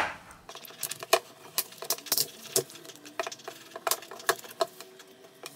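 Plastic guitar pick worked around the edge of a Huawei Y7 2019 smartphone's back cover, the cover's snap clips releasing in a string of sharp, irregular clicks.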